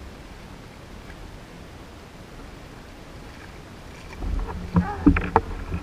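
Faint wind and water, then about four seconds in a loud burst of splashing with sharp knocks as a hooked jack crevalle thrashes at the surface right beside the kayak.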